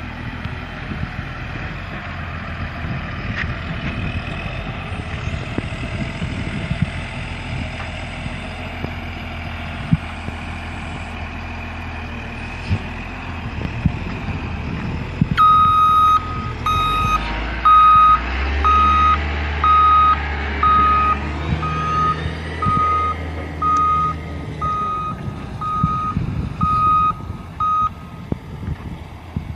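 Caterpillar wheel loader's diesel engine running as it pushes earth. About halfway through, its reversing alarm starts beeping, about one beep a second, while the engine grows louder.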